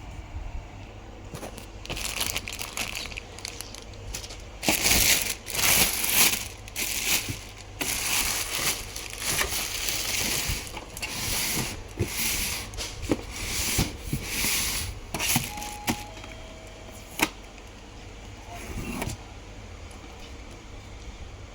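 Printer packaging being handled: plastic wrap and tape crinkling and tearing in irregular bursts, with a few sharp clicks, for most of the first fifteen seconds.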